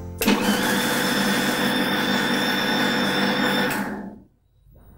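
Electric mixer grinder (mixie) motor running at a steady speed, grinding wet masala into a fine paste. It starts abruptly just after the beginning and is switched off about four seconds in, its sound dying away over half a second.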